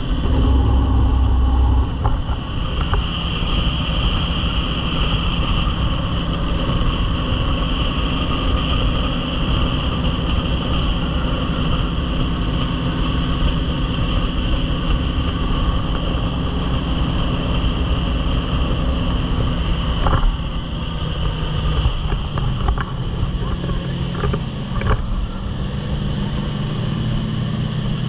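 Jet boat engine running at speed over rushing water. After about twenty seconds the engine note shifts, rising near the end, with a few short knocks along the way.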